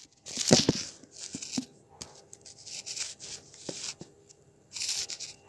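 Phone handling noise as it is moved and set in place: irregular rubbing and scraping against the microphone with a few knocks, loudest about half a second in and again near the end.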